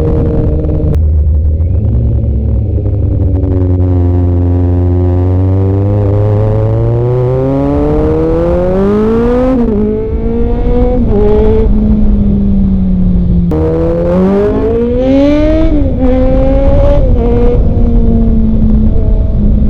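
Kawasaki Z900 inline-four engine pulling hard, its revs climbing steadily for several seconds, then dropping back in quick steps at the gear changes. It climbs again and then settles to a steadier note near the end.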